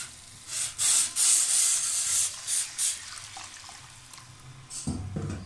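Water poured into a hot pan of frying kofta masala, splashing and hissing in several loud bursts over the first three seconds, then dying down, with one more short burst near the end.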